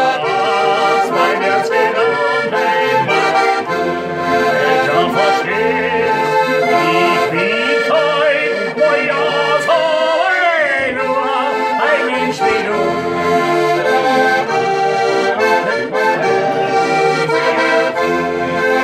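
Diatonic button accordion playing a lively traditional folk tune, with steady chords and a busy melody. About halfway through, a man's voice joins in briefly with a falling, sung call.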